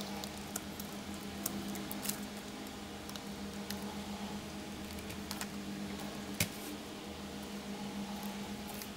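Scattered light clicks and taps of a laptop's plastic keyboard top case and its ribbon cable being handled, the loudest click about six and a half seconds in. A steady low hum runs underneath.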